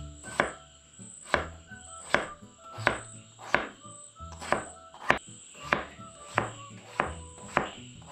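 Kitchen knife chopping peeled potato on a wooden cutting board: about eleven evenly spaced knocks of the blade hitting the board.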